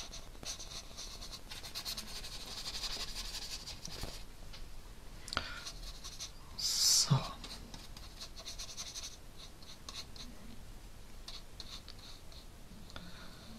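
Soft scratchy rustle of a large watercolour brush stroking wet paint across sketchbook paper, coming in spells, with one brief louder sound about seven seconds in.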